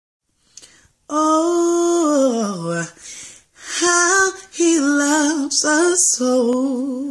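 A woman singing unaccompanied with no clear words. First comes a long held note that slides downward, then quick runs of notes and a wavering held note near the end.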